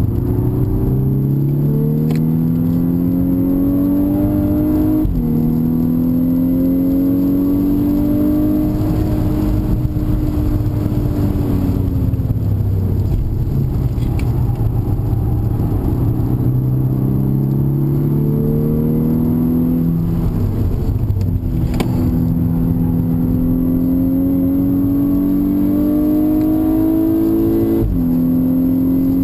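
A 2011 Volkswagen Golf VI R's turbocharged 2.0-litre four-cylinder engine pulling hard, heard inside the cabin over road noise: the engine note climbs and drops suddenly at upshifts about 5 s in, around 22 s and near the end, and falls away under a lift-off in the middle.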